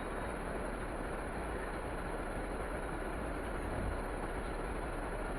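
Steady road and engine noise inside the cabin of a moving passenger vehicle, an even rumble and hiss with no distinct events.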